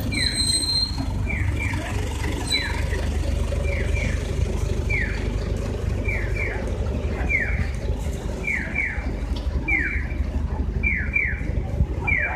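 Audible pedestrian crossing signal chirping: pairs of short falling electronic chirps, about one pair a second, repeating evenly over steady street traffic rumble.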